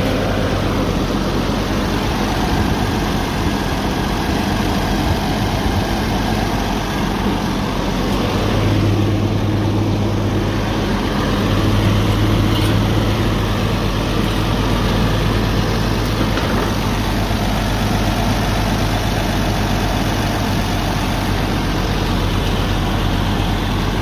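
1951 Oliver 77 tractor's six-cylinder engine idling steadily, heard up close beside the hood.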